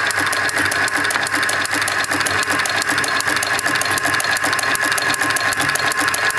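Automatic gold chain making machine running steadily, forming gold wire into chain links. It makes a fast, even mechanical clatter of many strokes a second over a steady motor whine.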